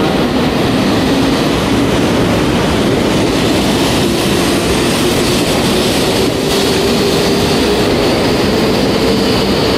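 E5 series Shinkansen pulling out of the station and gathering speed past the platform. Its wheels and running gear make a steady loud rush, and a motor whine climbs slowly in pitch as it accelerates.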